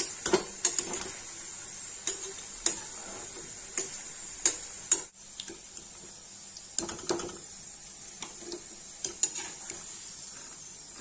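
Potato slices sizzling in hot oil in a steel kadai, with a steel slotted spoon scraping and clinking against the pan at irregular moments as the fried potatoes are turned and lifted out.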